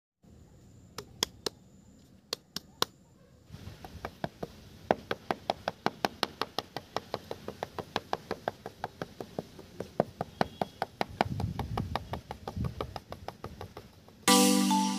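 A small mason's trowel tapping on sand. There are a few sharp clicks in two groups of three, then quick, even taps, several a second, from about three and a half seconds in. Mallet-instrument background music starts just before the end.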